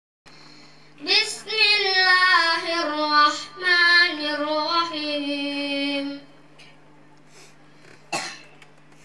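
A boy chanting a melodic Quran recitation into a microphone for about five seconds, his voice amplified with a steady low hum under it. After a pause there is one short sharp sound near the end.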